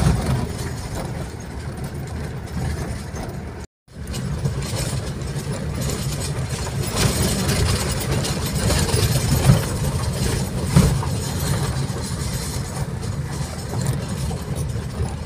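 Mitsubishi Pajero's engine running as it drives slowly down a rough dirt track, heard from inside the cabin, with two short knocks near the middle. The sound cuts out completely for a fraction of a second just before four seconds in.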